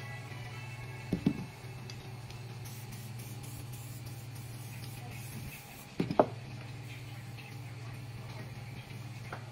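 Aerosol spray adhesive hissing in short bursts from a can as it is sprayed onto carbon fibre cloth. Two short knocks stand out, about a second in and about six seconds in, over a steady low hum.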